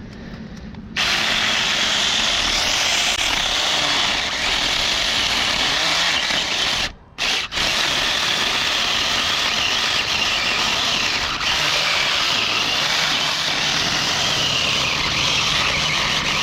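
Saker mini 20-volt cordless electric chainsaw starting up about a second in and cutting steadily into a wooden stump. It drops out briefly about seven seconds in, then carries on cutting.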